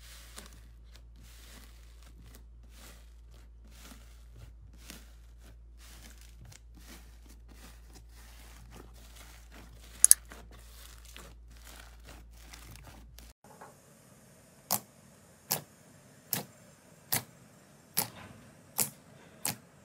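Thick slime kneaded and torn apart by hand, giving a constant fine crackle of small clicks and one sharper snap about ten seconds in. Then glossy green slime is pressed with the fingers and gives about seven sharp pops, roughly one every second.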